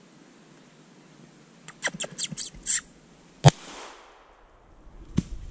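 A squirrel gives a quick run of about six harsh barks. About a second later a single .22 LR shot from a Taurus TX-22 pistol cracks out, the loudest sound, and echoes briefly through the trees. A fainter sharp crack follows near the end.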